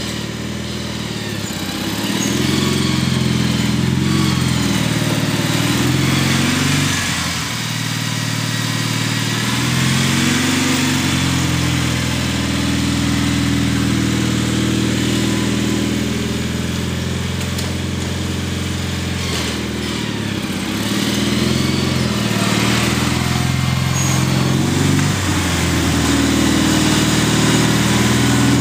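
Gravely tractor engine running steadily while plowing snow with a front blade, its pitch dipping and coming back up a few times as it takes the load.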